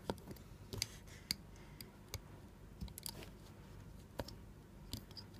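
Faint, irregular small clicks and ticks of a loom hook and silicone rubber bands being handled, with no steady sound between them.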